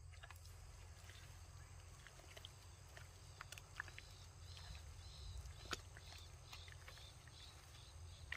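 Faint squelches and small clicks of hands digging through wet pond mud, over a steady low rumble. A run of short high chirps, about three a second, comes in around the middle.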